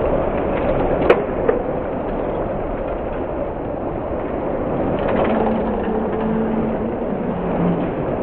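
A bunch of road-racing bicycles streams past close by: a steady rush of tyres and drivetrains. A sharp click about a second in, a softer one just after, and a low steady tone for a few seconds in the second half.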